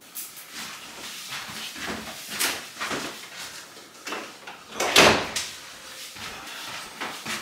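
A few light knocks and bumps of someone moving about a bathroom, the loudest about five seconds in.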